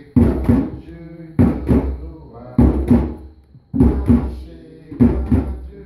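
Hand drum played live in a steady rhythm, two strokes about every second and a quarter, each stroke ringing out deep.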